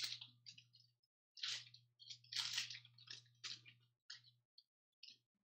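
A foil trading-card pack wrapper being torn open and crumpled by hand: a run of irregular crackling rustles that thin out to a few small crinkles near the end.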